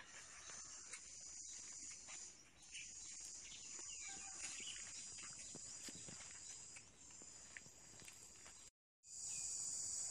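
Steady high-pitched insect chorus with faint scattered ticks and rustles. It drops out for a moment near the end, then returns louder.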